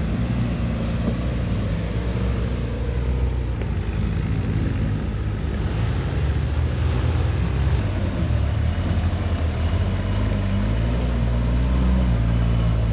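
Off-road rock crawler's engine working steadily under load as the rig crawls up a rock climb, its pitch rising and falling with the throttle.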